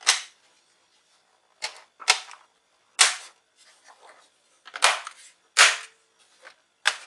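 Sharp, irregular clicks and knocks from handling the HP notebook's bottom cover and parts during reassembly, about seven in all.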